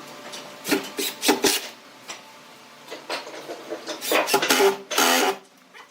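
Scraping strokes of a hand tool on wood. A quick cluster of short strokes comes about a second in, then a longer run from about three seconds in that ends in one long stroke.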